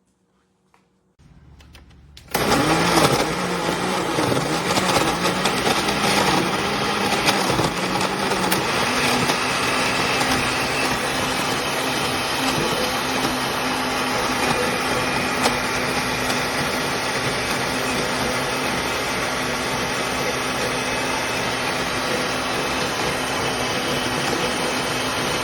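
Countertop blender switching on about two seconds in and running at high speed. Its pitch wavers for the first several seconds as the contents churn, then holds steady.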